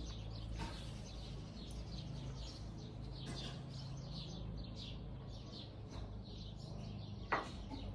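Several birds singing and chirping, many short high notes overlapping throughout, over a low steady hum. A single sharp click about seven seconds in.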